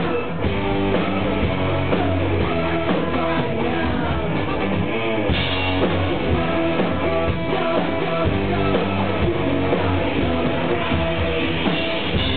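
Live electro-rock band playing a song: singing over synthesizer keyboards and a drum kit with a steady beat, loud and continuous.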